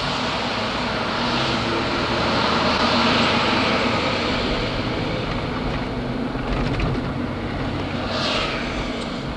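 Steady road and engine noise of a moving car, heard from inside the cabin, with a short falling squeal about eight seconds in.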